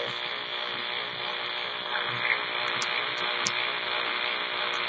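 AM radio static: a steady hiss with a constant low hum, from a RadioShack portable radio tuned to 1410 kHz on the AM band.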